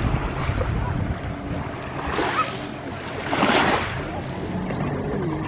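Motorboat engine running with a steady hum, water rushing past the hull and wind buffeting the microphone. There are two louder rushes of water or wind, the bigger one about three and a half seconds in.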